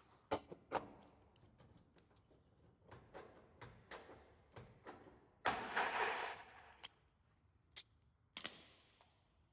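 Riveting a metal cladding sheet to a corner profile: a string of sharp metallic clicks and knocks from the rivet tool and sheet, with a louder rough noise lasting about a second just after the middle.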